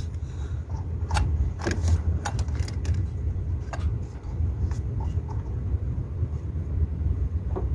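Light metallic clicks and clinks of hand tools and parts being handled during reassembly, about half a dozen scattered through, over a steady low rumble.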